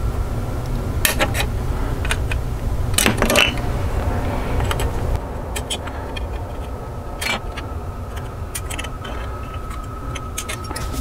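Sprue cutters snipping plastic model-kit parts off the sprue tree: a series of irregular sharp clicks and snaps, with a low hum underneath that drops away about five seconds in.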